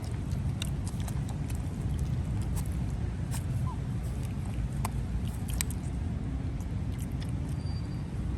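Puppies drinking milk, making small irregular wet clicks and smacks, over a steady low rumble.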